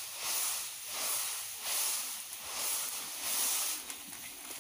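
Puffed rice (muri) swishing in a woven bamboo sieve as it is shaken in rhythmic strokes, a little more than one a second, sifting the frying sand and small broken grains out of the freshly fried rice.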